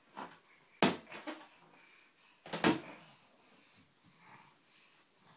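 A toddler's plastic ball bouncing and knocking against hard surfaces: one sharp knock about a second in, then a quick double knock about two and a half seconds in.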